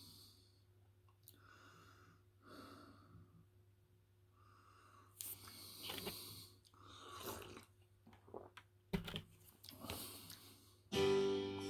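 Soft breathing and mouth noises close to the microphone, in puffs every second or so. Near the end a backing music track starts.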